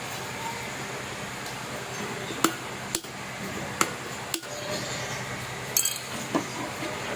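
A handful of sharp, separate clicks and taps of small hard parts being handled and fitted while an electric kettle is put back together, over a steady background hum.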